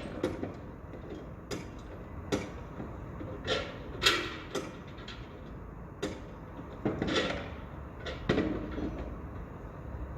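Construction site: irregular knocks and bangs of materials and tools being handled, about a dozen, the loudest about four seconds in, over a steady low rumble.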